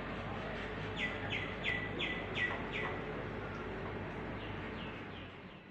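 A bird singing a quick run of about six falling whistled notes, followed near the end by a fainter run, over steady background noise.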